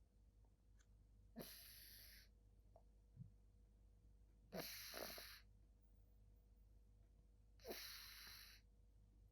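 A sleeping domestic kitten snoring softly, with three breathy snores about three seconds apart.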